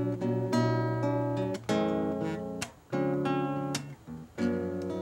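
Acoustic guitar strumming chords, each left to ring for about a second with short breaks between, as the instrumental introduction of a song.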